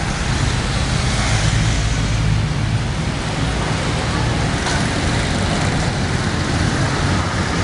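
Steady street traffic noise: motorbike and car engines running by, with a low steady engine hum.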